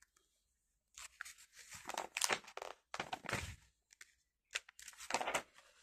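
Paper rustling and crinkling in several short bursts: the pages of a glossy catalogue being handled and turned.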